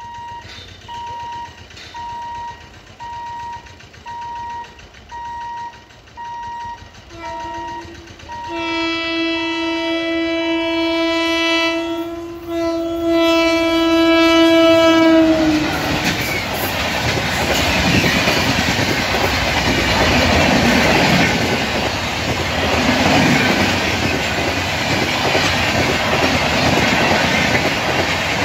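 Electronic beeping about once a second, then an Indian Railways electric locomotive sounds a long horn blast, broken once, as it nears the level crossing. From about halfway in, the passenger train passes close by with loud rumble and clickety-clack of coach wheels over the rail joints.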